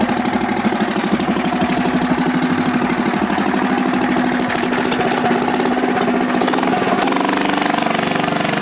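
A Mega Moto 80 minibike's small single-cylinder engine running with a rapid, even firing beat, its pitch shifting about seven seconds in. The new engine is being broken in gently.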